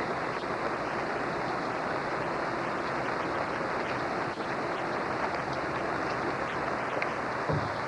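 Steady rushing of a river in flood, running out of its banks. A brief low thump near the end.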